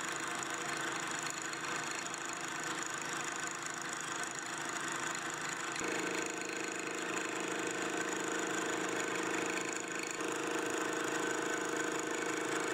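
Milling machine spindle driving a hand-ground fly cutter that thread-mills an 8 mm metric thread in one cut to full depth: steady running and cutting noise. The tone changes about six seconds in and again about ten seconds in.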